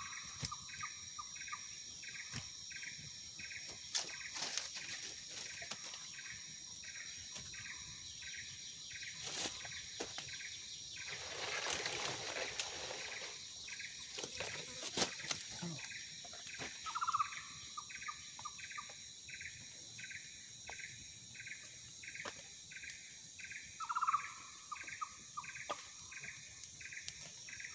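Insects chirping in an even pulse about twice a second over a steady high buzz. An animal gives a short falling, stuttered call a few times, and a brief rustle of noise comes about halfway through.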